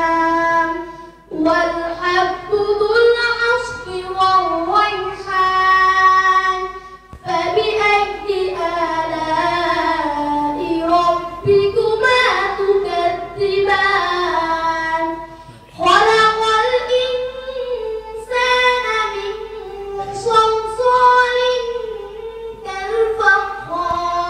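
A boy reciting the Quran in a melodic, chanted style into a microphone, in long drawn-out phrases with brief pauses for breath between them.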